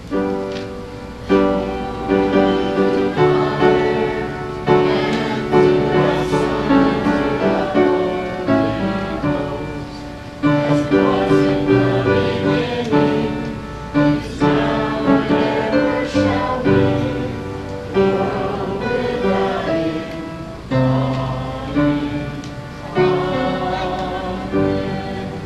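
Slow church hymn music: piano chords struck every second or two, each fading before the next.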